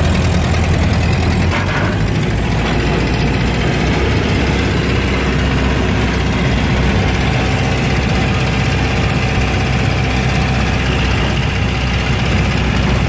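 1930 Ford Model A's four-cylinder flathead engine running while the car drives down the road, heard from inside the cab along with road and wind noise. The low engine note drops about two seconds in.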